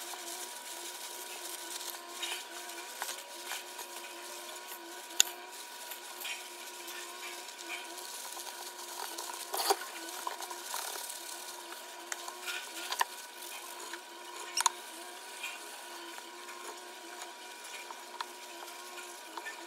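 Food-preparation handling sounds while making gimbap: scattered light taps and knocks of gloved hands, ingredients and containers on the counter, over a steady electrical hum.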